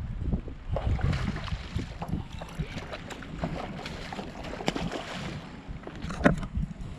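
Hooked snook splashing at the water's surface beside a paddleboard, with wind buffeting the microphone. A sharp knock comes near the end.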